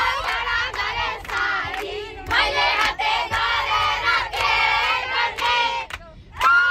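A group of children's voices shouting and singing together in high voices, in several drawn-out phrases with short breaks between.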